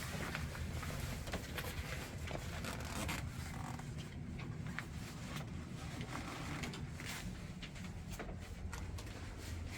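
Scattered rustling, scraping and light clicks of handling, over a steady low hum.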